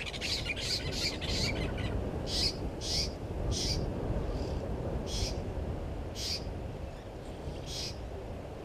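Oxpeckers calling: a quick run of short, harsh high calls, then single calls about once a second.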